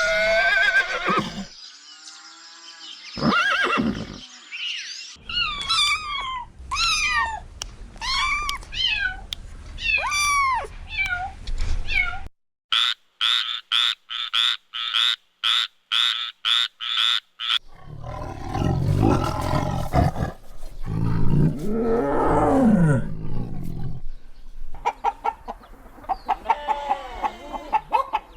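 A string of different animal calls played one after another: pitched cries, then a run of short rapid calls, then a loud deep call whose pitch rises and falls.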